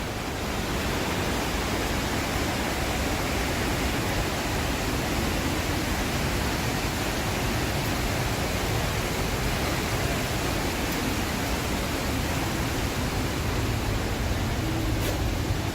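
Steady rush of falling water from a waterfall, an even, unbroken noise.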